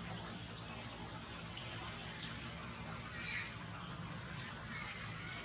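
Forest insects keeping up a steady, high-pitched drone, with a few faint short chirps here and there.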